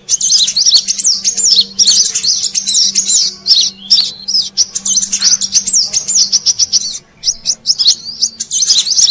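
Brown-throated sunbirds (kolibri kelapa) chirping and twittering rapidly, used as a lure call. It is a dense run of high, quick, sliding notes with a brief lull about seven seconds in, over a faint low hum.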